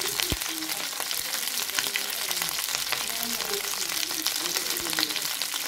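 Raw chicken drumsticks frying in hot oil in a stainless steel pan: a steady sizzle with dense crackling pops.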